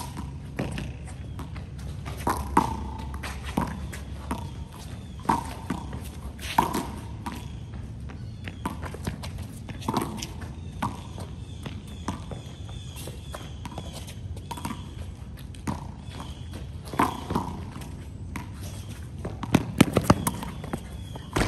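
Small rubber handball being slapped by open hands and bouncing off a concrete wall and court: irregular sharp smacks, with footsteps between them and a quick cluster of hits near the end.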